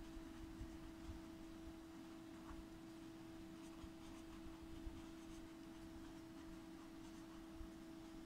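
Faint scratching of a pen on paper as equations are written by hand, over a steady faint tone.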